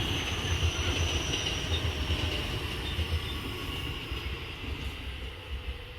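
Electric commuter train running on the rails, its low rumble with a faint high whine slowly fading as it moves away.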